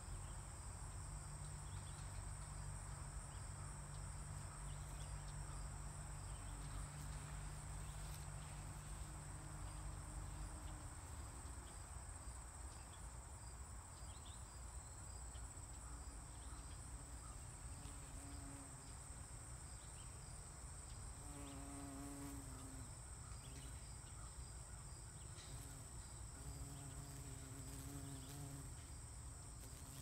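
Steady outdoor insect chorus, a continuous high-pitched trill, with a low rumble under it for the first third and a few brief low buzzes around the middle and near the end.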